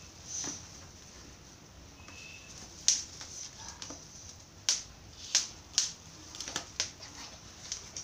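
Large scissors snipping through cardboard parcel packaging: irregular sharp snips, the first about three seconds in and more following closer together.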